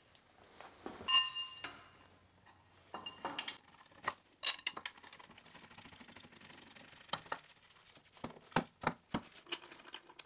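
Steel plate being handled and fitted by hand: a metallic clink that rings briefly about a second in, then scattered light knocks and clicks of steel against steel.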